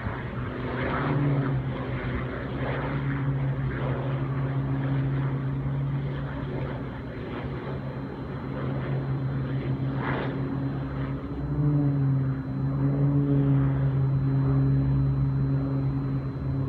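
Propeller aircraft engine droning steadily overhead, growing louder about a second in and again around twelve seconds in.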